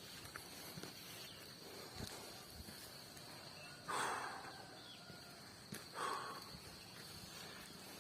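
Crickets chirring with a steady high buzz throughout, broken by two short noisy bursts about halfway and three-quarters of the way through.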